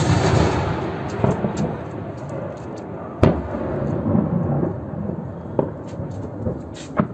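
Rolling rumble of a distant blast fading away, then a second sharp blast about three seconds in, and a couple of fainter cracks near the end.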